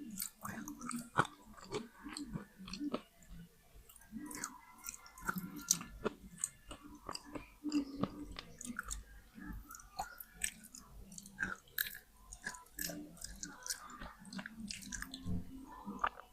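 Close-up chewing and crunching of wet slate pencils, biting off pieces and grinding them between the teeth, with many irregular sharp crunches.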